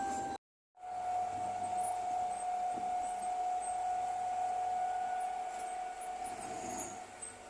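Komatsu bulldozer running steadily, its engine noise carrying a steady high whine. The sound cuts out completely for a moment just under a second in.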